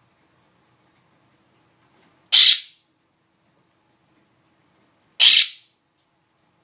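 A pet bird giving two short, harsh squawks about three seconds apart.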